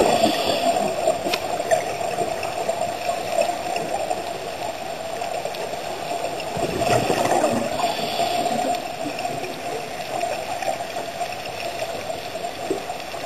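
Underwater sound of a scuba dive: a steady muffled water hum, with gurgling rushes of a diver's exhaled regulator bubbles at the start and again from about seven to eight and a half seconds in.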